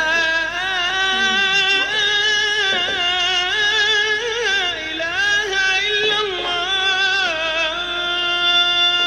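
A melody with a single wavering, singing-like line, loud and unbroken. It starts suddenly and stops abruptly just after the end.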